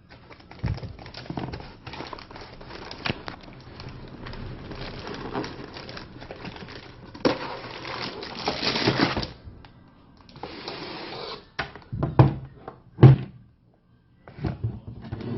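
Packaging being handled: plastic and cardboard rustling and crinkling with scattered small clicks, then a few hard knocks as items are set down or bumped together.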